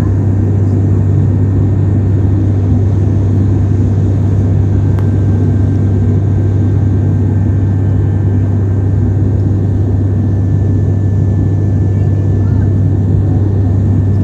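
Steady cabin noise of a passenger plane in flight: the even engine drone and rush of air, with a strong low hum.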